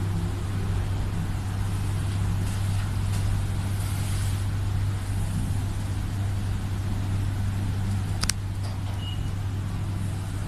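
Steady low electrical hum with an even hiss of room background noise, and one sharp click about eight seconds in.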